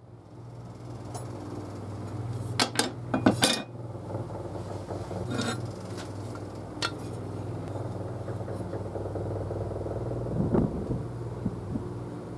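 A steel chisel scraping and chipping rust scale off an old cleaver's iron tang, with sharp metallic scrapes and clicks, the loudest cluster about three seconds in and single ones later. A steady low hum runs underneath.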